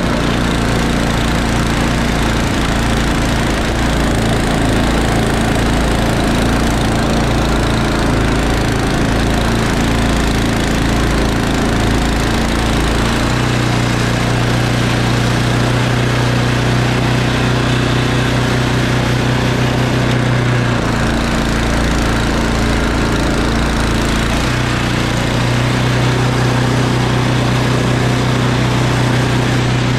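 Snowblower's small single-cylinder engine running steadily, its note shifting a few times, during a test run after a belt replacement.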